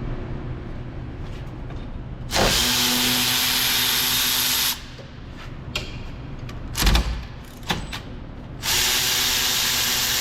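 Handheld power tool running in two steady bursts of about two and a half seconds each, with a few knocks and clicks between them.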